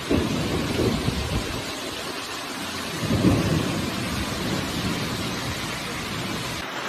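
Severe storm of wind-driven rain and hail: a dense, steady hiss of falling hail and rain, with strong wind gusts buffeting the microphone in heavy low rumbles. The gusts are strongest at the start and again about three seconds in.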